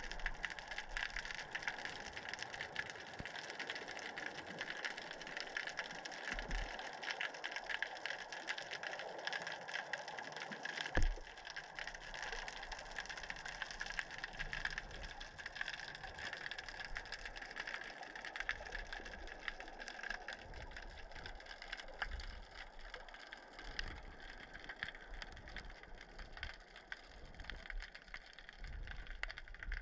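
Underwater sound picked up by a submerged camera: a steady wash of water noise with dense fine crackling and ticking, and one sharper knock about eleven seconds in.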